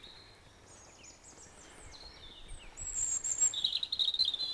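Wild songbirds singing: a string of high whistled notes and short sliding phrases, growing louder in the last second and a half with a quick trilling phrase.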